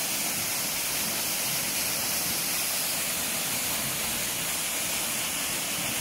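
A small waterfall spilling from a rock overhang onto rocks and a shallow pool, making a steady, even rush of falling water.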